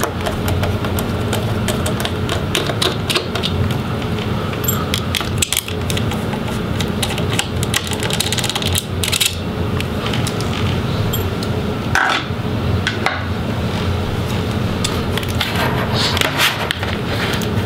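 Small Phillips screwdriver working screws out of a laptop's plastic display hinge area: scattered light clicks and scrapes of metal on screw heads and plastic, over a steady low hum.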